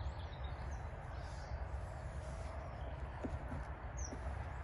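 Outdoor background of a steady low rumble with a few faint, short bird chirps, and a couple of faint small clicks about three seconds in.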